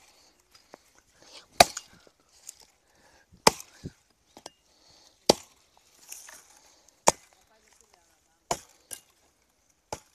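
Hand axe chopping logs and branches into firewood: sharp single strikes of the blade into the wood, the loudest coming about every two seconds, with lighter knocks between them.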